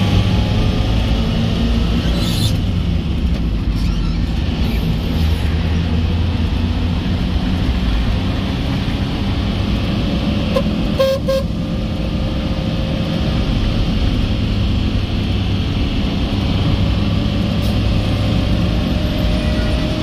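Steady road and engine noise from inside a moving car, with a short toot of a car horn, in about two quick pulses, a little past halfway.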